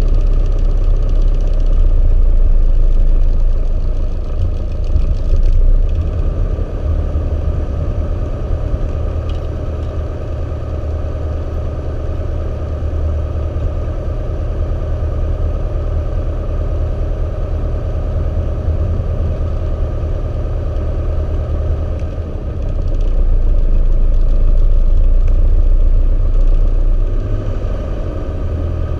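Socata TB9 Tampico's four-cylinder Lycoming engine and propeller running at taxi power, heard from inside the cockpit. The engine swells louder for a few seconds near the start and again near the end, as power is briefly added while taxiing.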